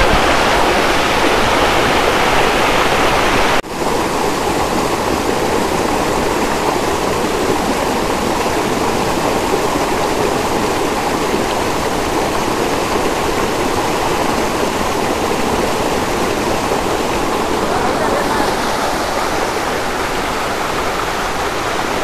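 Waterfall water rushing close by, a loud, steady roar that drowns out voices, with a sudden short break about four seconds in.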